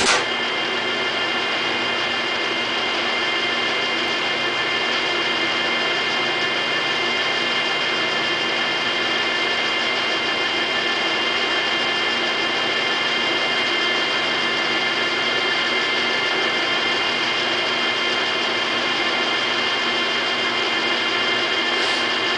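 A 12½ × 42 Cincinnati Tray-Top lathe starting up with a sudden jump in level and then running steadily: a whine of several steady tones over an even mechanical hum.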